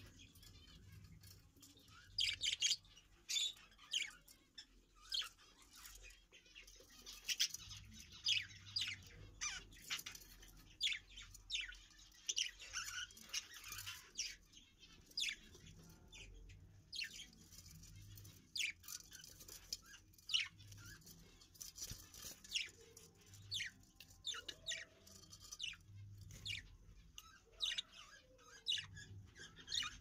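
Budgerigars chirping in the nest box: many short, high chirps in quick runs with brief pauses.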